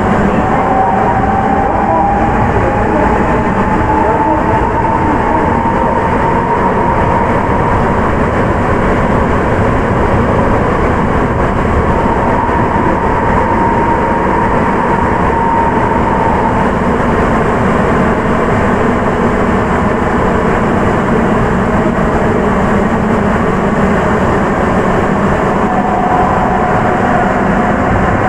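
Running sound inside a Sapporo Municipal Subway 9000-series train on its rubber-tyred wheels, with a steady loud roar. The Hitachi IGBT-VVVF traction whine rises in pitch over the first few seconds, holds and fades out about sixteen seconds in, and a lower whine comes back near the end.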